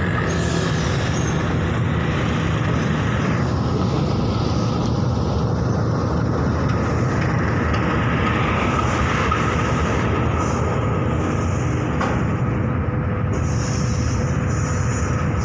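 A long freight train hauled by diesel locomotives passing close beneath, with a loud, steady rumble of the locomotive engines and wheels on the rails.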